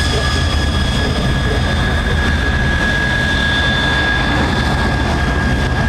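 Jet engine running steadily: a continuous high whine with a couple of steady tones over a loud low rumble.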